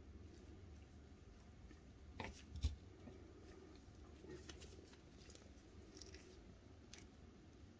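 Small plastic puzzle pieces clicking and tapping against each other as they are slid and fitted together, with two sharper clicks a little over two seconds in and a few faint taps after.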